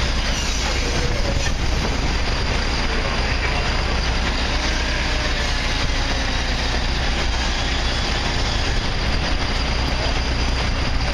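Fire trucks' diesel engines and pumps running, a steady rumble and hiss with a constant low hum.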